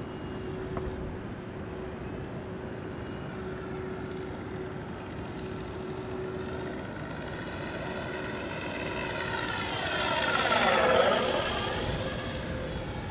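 Electric RC Flightline Corsair F4U-1A warbird in flight, its propeller and motor mixed with the simulated radial-engine sound from its onboard sound system. It draws closer and makes a loud low pass about ten seconds in, the pitch dropping steeply as it goes by, then fading away.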